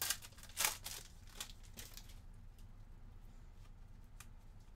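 Foil trading-card pack wrapper crinkling as it is torn open and handled, with two loud crackles in the first second and fading off after about two seconds. After that come only a few faint ticks as the cards are handled.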